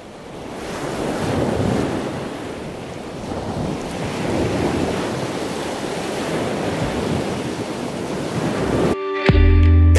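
Wind and sea waves rushing in a steady wash of noise that builds over the first second and then swells and ebbs. About nine seconds in it cuts off and plucked guitar music begins.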